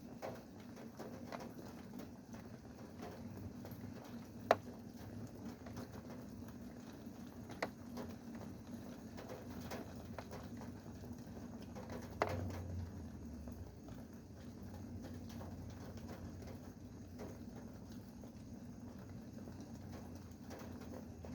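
Rain dripping, heard as a soft steady wash with irregular drips tapping on a hard surface; a few louder drops stand out, the sharpest about four and a half seconds in. A low steady hum runs underneath.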